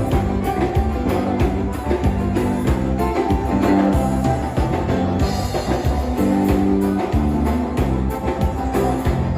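Gaúcho dance-band music: an instrumental passage with held pitched notes over a steady, regular beat.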